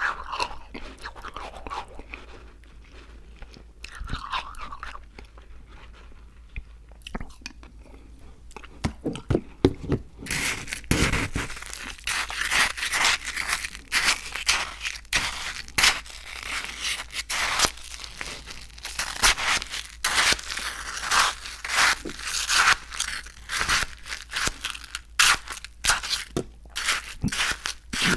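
Close-miked chewing and crunching of frozen ICEE slush. It is soft and sparse at first, then turns into dense, rapid crunching from about ten seconds in.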